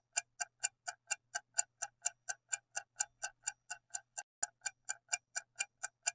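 Clock-ticking countdown sound effect: steady, even ticks at about four a second, timing the pause for answering the quiz question.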